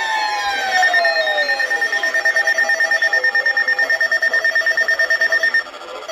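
Electronic weather alert radio alarm beeping: a high tone pulsing rapidly, about seven or eight beeps a second, which stops abruptly near the end. It marks the start of a new severe weather warning. It is preceded by a tone sliding down in pitch over the first two seconds.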